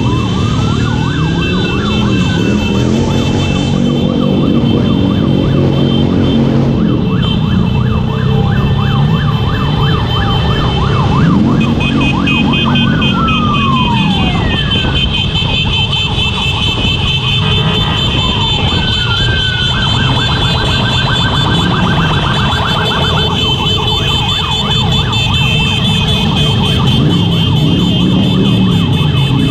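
A motorcycle convoy on the move: engines running and rising and falling in pitch, with sirens sweeping up and down over them several times.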